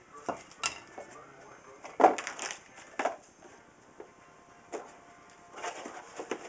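Cardboard product boxes handled and opened on a tabletop: scattered knocks and rustling of cardboard, the loudest about two seconds in, a sharp knock about a second later, and more rustling near the end.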